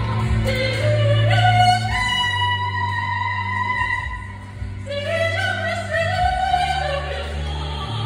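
Woman singing in operatic style into a handheld microphone, amplified through the hall's speakers. She holds one long note in the middle, pauses briefly for breath, then starts a new phrase that rises in pitch.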